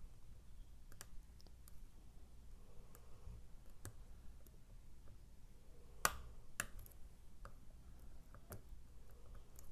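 Scattered light clicks of a lock pick and tension tool working inside an Evva ICS lock, setting its sliders, with a sharper click about six seconds in.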